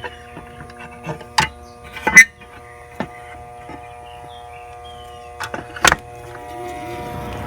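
Steady hum from a Trane rooftop package unit, broken by several sharp clicks and knocks. Near the end a rushing noise starts to rise.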